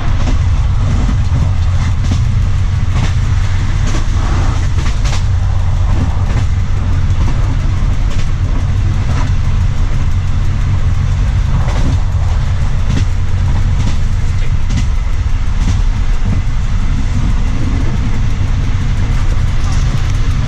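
Train running at speed on the rails: a loud, steady low rumble with scattered, irregular knocks and clicks from the wheels on the track.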